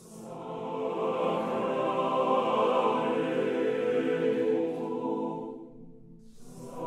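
FluffyAudio Dominus sampled choir singing a short chordal phrase through the close microphone position, fully dry with no reverb. It swells in from a soft hiss, moves through a few chords and fades out about six seconds in. A new phrase starts with another hiss just before the end.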